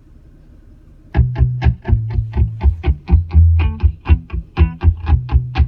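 Music played loud through a car audio system with Focal component speakers and two JL Audio W3 12-inch subwoofers in a ported bandpass box, the guitar track carrying heavy bass and a steady beat. It starts about a second in after a faint hum.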